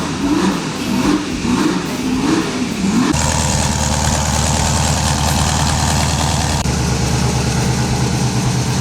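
Engine of a Tornado GT40 Mk2 replica, its V8 revved up and down a few times, then from about three seconds in running at a steady idle.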